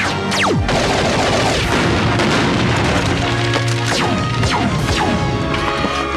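Cartoon laser-gun zaps that drop in pitch, then an explosion that rumbles on for a couple of seconds, with more zaps later, over background action music with held notes.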